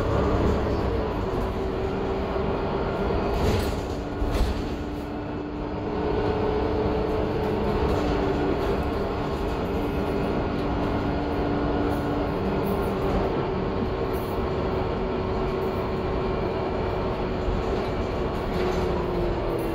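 A 2021 Gillig Low Floor 40-ft transit bus under way: its Cummins L9 diesel and Voith D864.6 automatic transmission drone steadily with a whine over road rumble. The whine falls in pitch near the end as the bus slows, and there are a couple of knocks a few seconds in.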